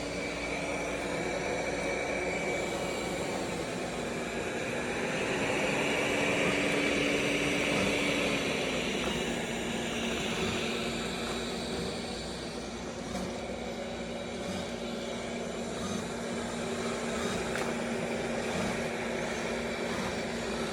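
Roborock S8 robot vacuum running, its suction fan making a steady whirring hum over a rushing noise. The hum dips in pitch briefly about four seconds in, then settles slightly lower about eight seconds in.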